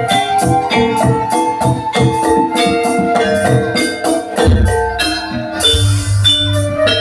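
Jaranan accompaniment music: a gamelan-style ensemble of struck bronze pots and keys with drums, playing at a fast, even beat. A deep low tone swells in about halfway through and fades before the end.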